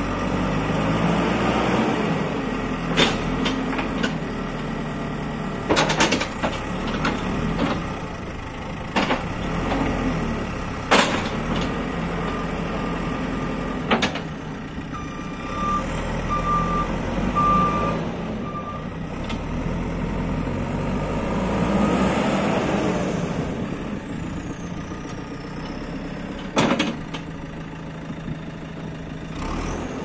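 JCB 4CX backhoe loader's diesel engine running and revving as the machine and its loader arm are worked, with several sharp metal clanks. A reversing alarm beeps a few times in the middle.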